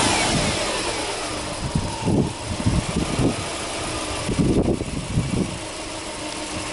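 Subaru Impreza's EL15 1.5-litre flat-four engine, heard from the open engine bay: its revs fall away over the first second after a blip of the throttle, then it settles into a steady idle.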